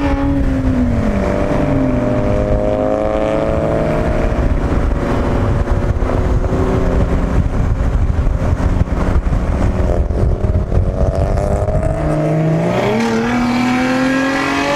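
Car engine accelerating along a curved on-ramp onto a freeway. Its note falls in the first second or so and then climbs slowly. It gives way to a stretch of rumbling road and wind noise, then rises again near the end as the car speeds up to merge.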